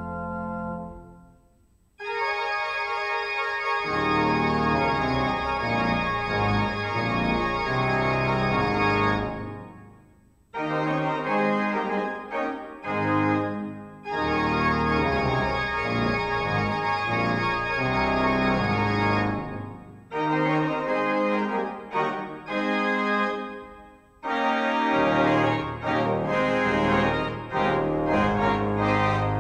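Church organ played in full chords over a pedal bass line. Sustained phrases alternate with short, detached chords, with a few abrupt breaks where the sound drops out for about a second.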